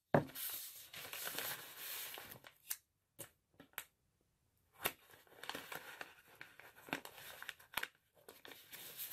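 Masking tape being pulled off its roll, then a few light clicks and the brown paper bag crinkling as fingers press the tape strips down onto it.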